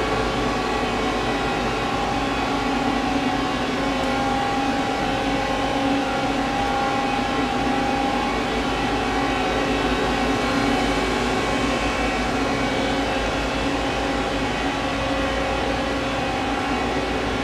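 Steady mechanical hum with several fixed tones, unchanging throughout, from a powered-up Nakamura Tome TMC-15 CNC turning center idling with its door open and not cutting.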